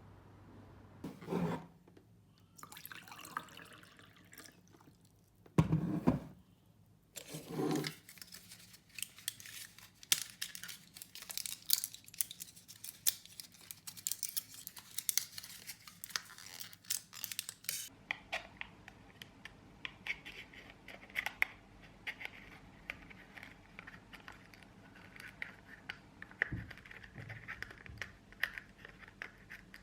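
Water running and splashing for about ten seconds, with scattered household knocks and clicks before and after it.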